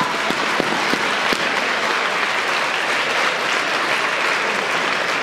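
Audience applauding, a dense steady clatter of claps.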